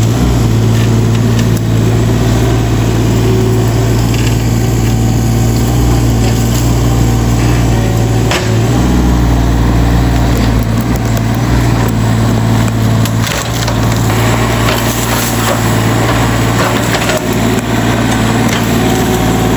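Excavator's diesel engine running hard at a steady pitch, with cracking, crunching and scraping as its bucket works soil and debris while backfilling a trench.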